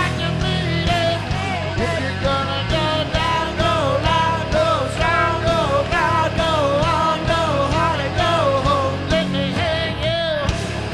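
Live heavy metal band playing at full volume, with a lead singer holding wavering, sung lines over the guitars and drums.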